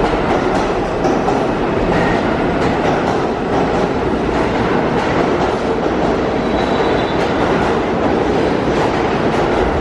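New York City subway train running in an underground station, a steady loud rumble of the train and its wheels on the track.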